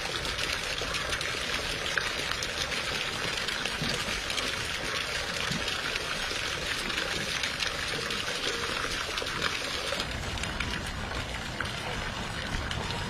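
Water splashing and running in a stock tank as a black bear bathes in it, pawing at a falling jet of water: a steady rush of water with frequent small splashes.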